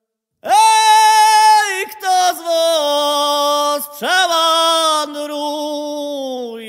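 A solo male voice sings a folk melody unaccompanied, high in his range. Two phrases each open with a quick upward slide to a long held note, then step downward in pitch.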